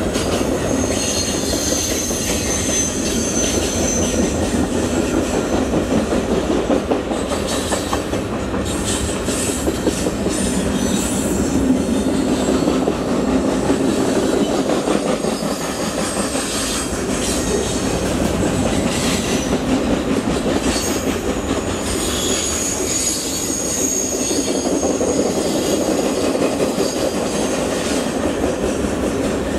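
Cars of a Union Pacific mixed freight train rolling by on curved track: a steady rumble and clatter of steel wheels on rail, with a thin high wheel squeal near the start and again about two-thirds of the way through.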